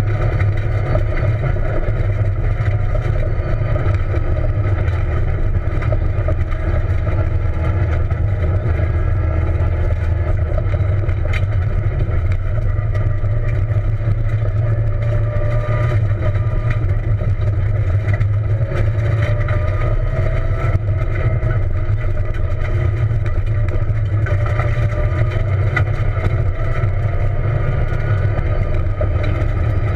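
Peugeot 207 rally car driven hard on a dirt road, heard from inside the cabin: the engine runs steadily under load, its pitch rising and falling gently, over a constant low rumble of tyres and chassis on the gravel.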